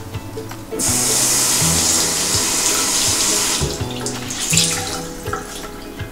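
Bathroom mixer tap running into a ceramic basin for about three seconds, wetting a cleaning cloth, then shut off; soft background music throughout.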